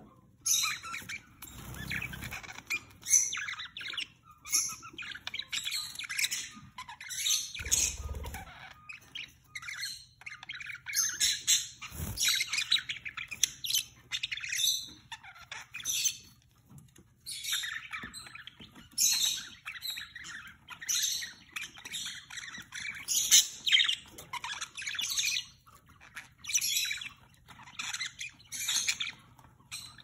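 Budgerigars chattering in a long warble of quick chirps and harsh squawks, broken by short pauses: the mating call of a budgie pair mating.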